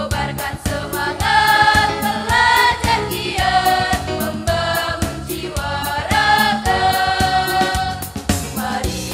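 Mixed school choir singing in harmony through a PA, held notes moving in phrases over a steady beat of about three a second.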